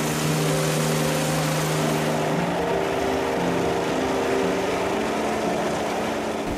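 Helicopter rotor noise, a steady loud rushing from the machine hovering overhead, under background music of held notes.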